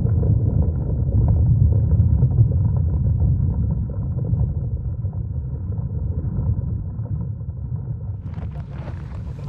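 Wind buffeting the microphone: a loud, steady low rumble with little above it, easing slightly toward the end, where the sound turns brighter and fuller just before the end.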